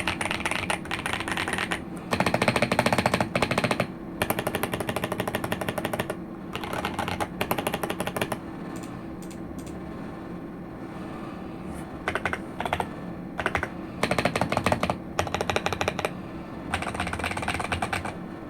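Ajazz AK820 mechanical keyboard with yellow switches being typed on: fast runs of keystrokes lasting a second or two each, broken by short pauses, with a longer gap in the middle.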